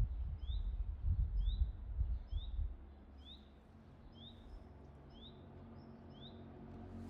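A small bird repeating a short, high, rising chirp about once a second. Gusts of wind rumble on the microphone in the first three seconds, then die down.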